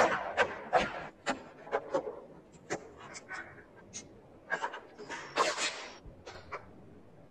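A run of irregular sharp clicks and short scrapes, like plastic parts being handled and snapped into place on a model RC car, thickest in the first two seconds. A longer rushing noise comes about five and a half seconds in.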